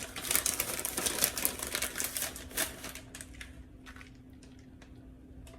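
Crinkling of a plastic bag of pre-shredded cheese as it is handled and the cheese is shaken out, a quick run of clicks and rustles that thins out after about three seconds, over a faint steady hum.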